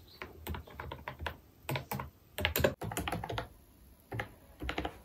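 Typing on a compact wireless keyboard with round retro-style keycaps: an irregular run of light key clicks with short pauses between bursts of keystrokes.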